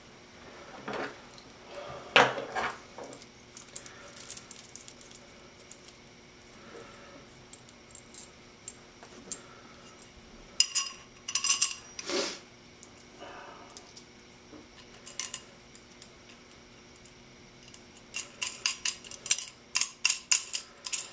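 Perforated steel square tubing and small bolts and washers clinking and knocking as they are handled and fitted together, with a quick run of small metallic clicks near the end.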